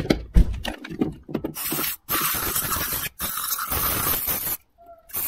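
Hand pump spray bottle blasting cleaner into a Trabant carburettor's body in three hissing bursts, from about a second and a half in, flushing out the grime. A few knocks and clicks of parts being handled come before it.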